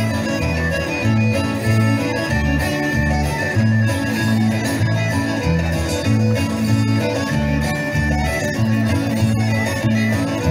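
Instrumental Greek folk dance music with a steady, even bass rhythm under sustained melody lines.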